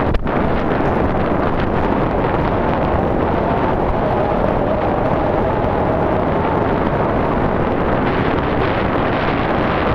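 Wind blowing across the camera microphone: a steady, loud rushing rumble.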